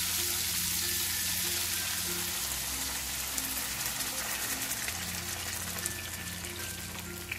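Food sautéing in oil in a pan, a steady sizzle that slowly fades, with a few small clicks, under light background music.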